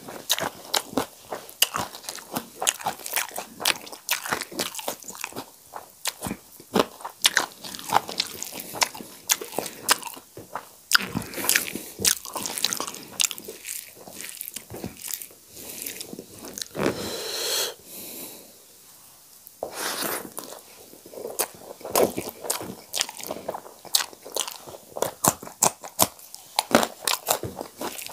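Close-miked eating with the hands: wet chewing and lip-smacking of rice and cooked saag greens, crisp bites into a raw green chilli, and fingers squishing the rice. The chewing eases off briefly a little past the middle.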